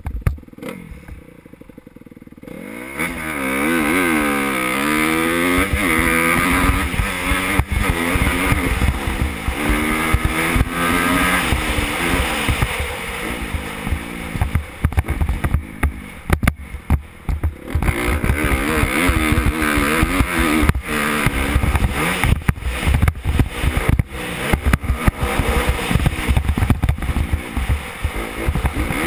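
2014 Honda CRF250R's four-stroke single-cylinder engine being ridden hard, its pitch repeatedly rising and dropping as it revs up and shifts through the gears. The engine comes in about two and a half seconds in, after a quieter start.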